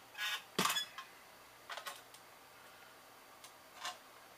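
Handling clatter of a bare computer motherboard being picked up and turned over on the workbench: two sharp knocks in the first second, then a few light clicks, and another sharp knock at the very end.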